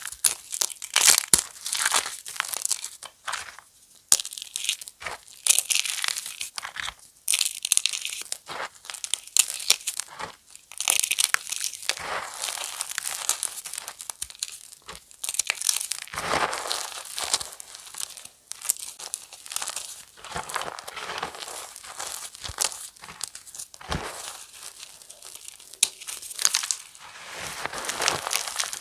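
Crispy fresh chalk mini blocks being crushed into chunks: a steady run of dry, irregular crackles and sharp snaps.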